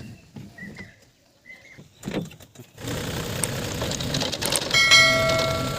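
A few short high chirps over near quiet, then an engine starts running steadily about three seconds in. Near the end, a brief ringing tone sounds for about a second.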